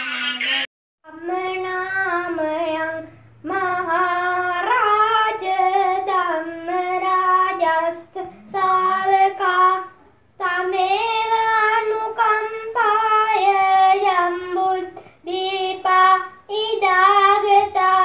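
A child singing solo without accompaniment: sung phrases of a few seconds each, with short pauses between them. A different sung passage breaks off just under a second in, before this voice starts.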